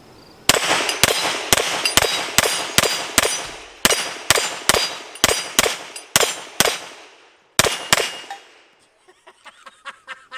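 Rapid fire from a tuned Sig Sauer P320 X5 9mm competition pistol, about two dozen shots at roughly four a second, with a short pause before two final shots about eight seconds in. The steel plate targets ring between the shots. Faint small clicks of gun handling come near the end.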